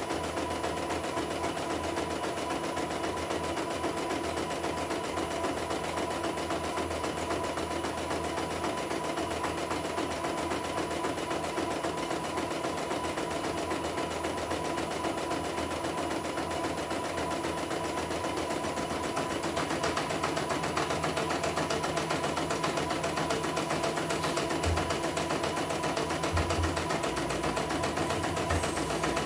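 CNY E900 portable computerized embroidery machine stitching a design: the needle runs at a steady fast rate while the hoop carriage moves the fabric. The running grows a little louder about two-thirds of the way through.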